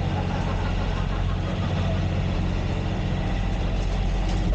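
Motor yacht's engine running steadily: a constant low drone with an even rush of noise over it.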